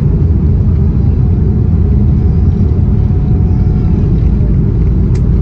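Steady low rumble in the cabin of a Boeing 787-10 taxiing on the ground, from the engines and the rolling gear. A single short click comes near the end.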